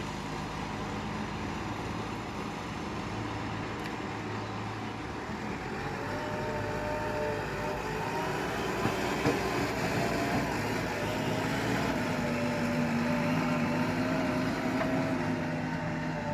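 Heavy diesel machinery running steadily. About six seconds in it grows louder and a wavering higher whine joins in, as the machine works under load.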